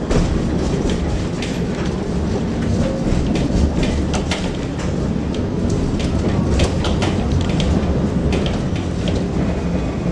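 Tram running along the track: a steady low rumble of wheels and running gear, with frequent sharp clicks and rattles as the wheels pass over rail joints.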